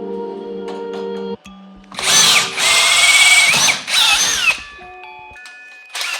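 Power drill running and cutting a 6 mm hole in a metal plate, in a few loud pulls from about two seconds in to four and a half, its motor whine rising and falling as it bites.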